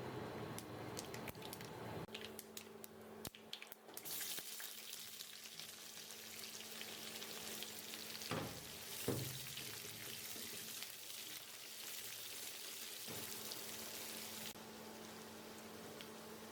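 Food frying in hot oil in a pan: a few crackles, then a steady sizzle starting about four seconds in, with two knocks near the middle.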